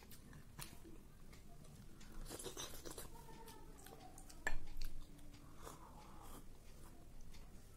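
Eating rice and dal by hand: fingers mixing rice on a plate, then chewing with soft mouth clicks. One sharper click comes about four and a half seconds in.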